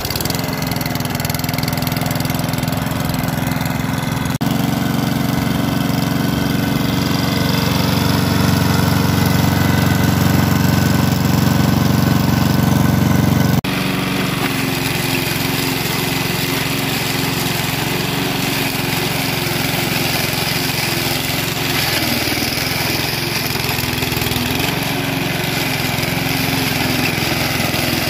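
Small lawnmower engine running steadily, with sand poured into its crankcase oil. The sound jumps abruptly twice, about 4 and 14 seconds in, and is slightly louder in between.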